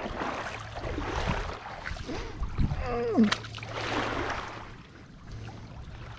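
A hooked bass splashing and thrashing in shallow water as it is grabbed by hand, with a steady low hum underneath.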